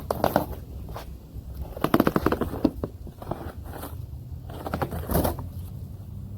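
Storm door packaging being opened and handled: crackling and scraping of cardboard and wrapping in three short bursts, the middle one the loudest.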